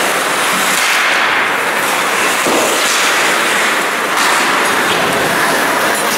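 Loud, steady din of an ice hockey rink during play: crowd noise mixed with the scrape and clatter of skates, sticks and puck on the ice.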